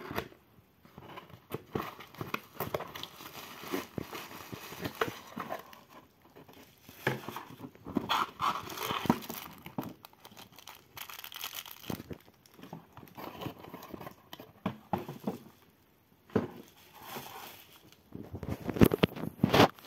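Plastic packaging crinkling and rustling in irregular bursts, with small knocks and clicks, as a cardboard box is opened and a plastic bag of screws and wall plugs and a bubble-wrapped lamp are taken out. The rustling is loudest near the end.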